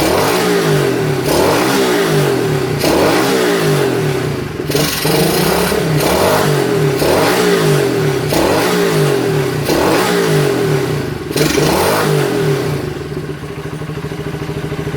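Honda Monkey's small four-stroke single-cylinder engine blipped repeatedly, revving up and back down about every second and a half, then settling to idle near the end. The engine has a loud abnormal mechanical noise that new cam-chain parts have not cured.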